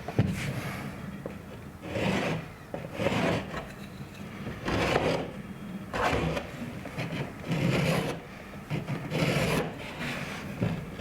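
Scratchy strokes of a marker tracing around the edge of a drywall patch piece held against the drywall, repeated every one to two seconds.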